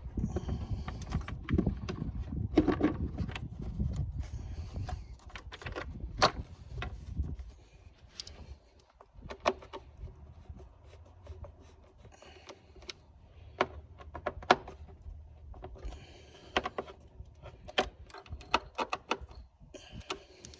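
Irregular clicks, taps and light rattles of plastic and metal engine-bay parts being handled and fitted under a car's hood, with a low rumble through roughly the first seven seconds.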